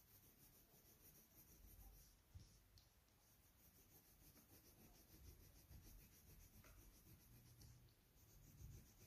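Near silence: faint room tone with a few soft low bumps.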